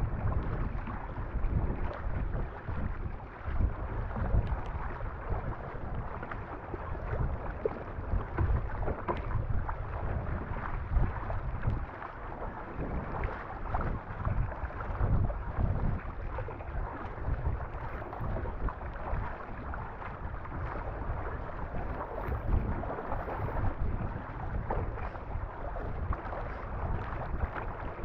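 Water rushing and splashing along the hull of a MAZU Pro Elite surfski as it is paddled through choppy sea, with uneven low wind buffeting on the microphone.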